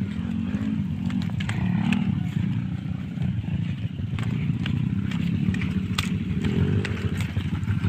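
Small motorcycle engine running at low speed along a bumpy dirt trail, its pitch wavering slightly, with scattered clicks and rattles from the rough ground.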